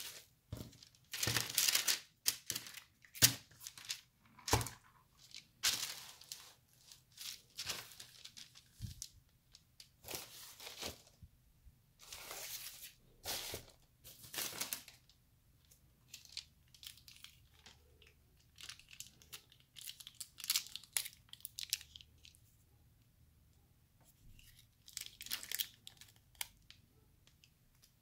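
Paper napkins and fast-food packaging rustling and crinkling in irregular bursts as they are handled, with a few sharp taps and clicks in the first few seconds.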